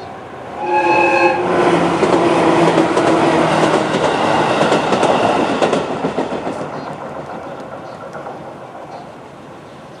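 A JR 211-series electric train sounds a short horn blast about a second in, then runs over the level crossing with rail clatter that fades away over the last few seconds. The crossing's warning bell stops near the end as the train clears the crossing.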